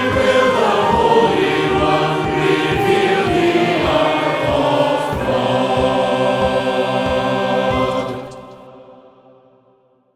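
Choir singing, the music dying away to silence after about eight seconds.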